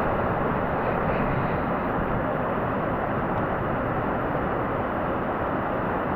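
Rain falling steadily on the barn roof: an even, unbroken hiss.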